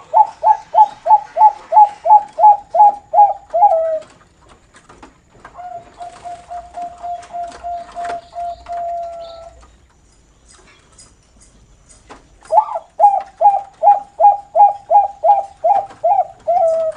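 Perkutut (zebra dove, Bangkok line) giving its noklak call. There are two runs of about fourteen short, falling coos at about four a second, one at the start and one from about twelve seconds in. Between them, from about six to ten seconds, comes a softer, even, rapid trill on one pitch.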